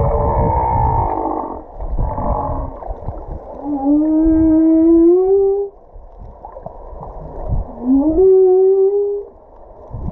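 Humpback whale vocalizing underwater: a string of calls, with two long moans about four and eight seconds in that each climb in pitch and then hold, over a low underwater rumble.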